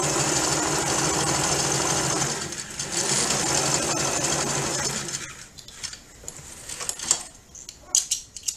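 Domestic sewing machine running a zigzag stitch in two runs of a couple of seconds each, with a short pause between, stopping about five seconds in. A few sharp clicks and light handling noises follow near the end.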